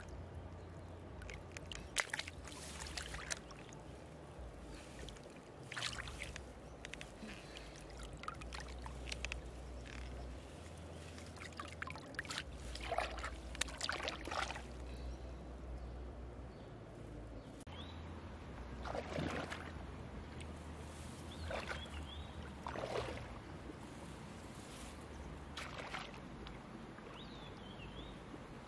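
Shallow river water splashing and sloshing in short, irregular bursts as a person wades and gropes with her hands in the shallows, over a steady low rumble.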